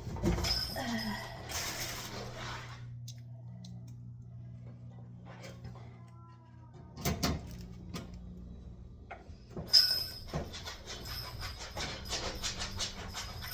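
Scraping and knocks from handling metal parts and tools, with a quick run of rattling clicks near the end, over a steady low hum.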